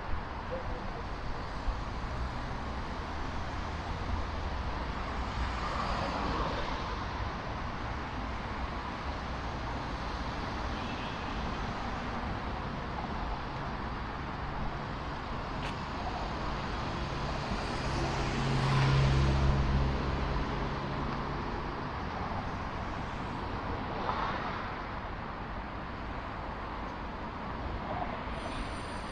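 City street traffic: a steady wash of road noise with several vehicles passing. The loudest, about two-thirds of the way through, goes by with a low engine drone.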